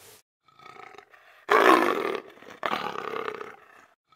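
Big cat roaring: a quieter growl first, then two loud roars of about a second each, the sequence starting over near the end.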